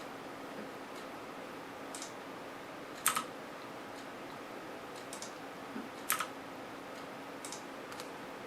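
A handful of sharp clicks at a computer, keys or buttons pressed a few seconds apart, some in quick pairs, over a steady low electrical hum.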